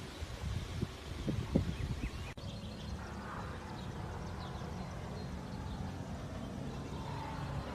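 Outdoor ambience: a steady low rumble of wind on the microphone with faint bird chirps, and a few short knocks between one and two seconds in.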